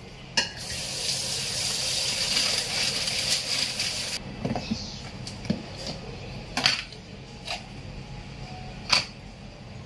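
Kitchen tap water running into a bowl of coriander in the sink, a steady hiss that is shut off abruptly about four seconds in. It is followed by a few sharp clicks and knocks as plastic kitchen items are handled.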